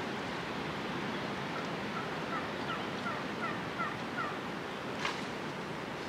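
Wild turkey calling: a series of about ten short notes, each dropping in pitch, over about two and a half seconds, against a steady rushing background. A single short sharp click follows about five seconds in.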